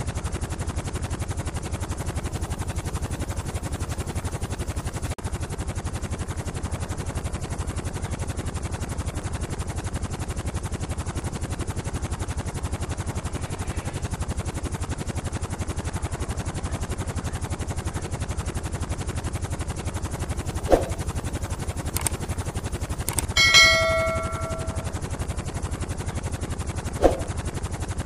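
Helicopter rotor running steadily: a fast, even chopping of the blades with no change in pace. In the last third a few sharp clicks and one brief ringing ding sound over it.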